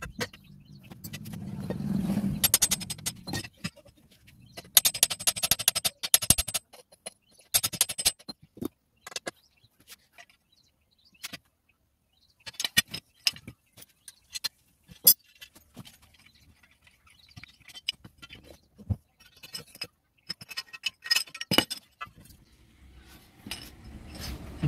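Hand-pump parts handled at close range: scattered metallic clinks and short scraping, rustling bursts as a new washer is tied and set onto the pump rod, with a low hum in the first few seconds.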